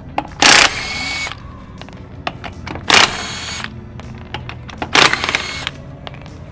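Impact wrench run in three short bursts about two seconds apart, spinning the lug nuts off the front wheel of a Toyota AE86.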